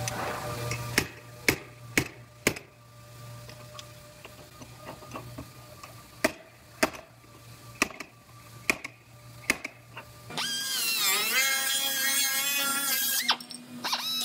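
Slide hammer pulling out a dented quarter panel by its wheel-arch lip: sharp metallic clanks as the weight hits the stop, four in a row about half a second apart, then a second run of strikes. In the last few seconds a whine that dips and rises in pitch takes over.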